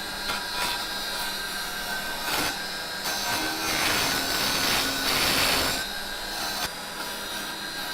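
Raitool 350 W mini wood lathe running with a steady motor whine while a hand chisel scrapes the spinning wood; the cutting noise swells from about three to six seconds in.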